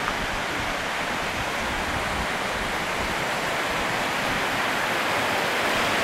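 Steady rush of the fast, rain-swollen stream below Torc Waterfall running in spate, heard close up, growing a little louder near the end.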